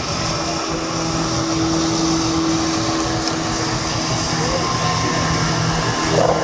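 Boat engine running with a steady drone, a constant low hum over a wash of noise.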